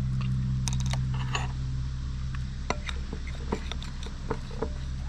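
A metal spoon clicking and scraping against a glass mixing bowl while stirring water into flour for a dough, after a short pour of water from a plastic bottle near the start. A steady low hum runs underneath.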